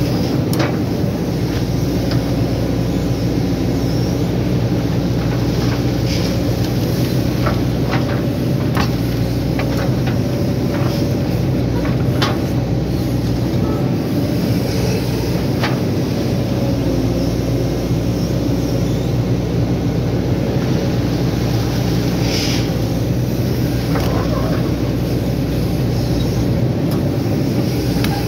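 Hydraulic excavator's diesel engine running steadily under digging load, heard from the operator's cab. Scattered short clanks and knocks as the bucket digs into wet soil and rock.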